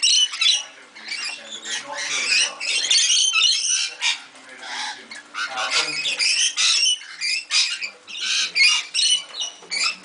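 A flock of rainbow lorikeets chattering and screeching: many short, high-pitched calls overlapping, with brief lulls.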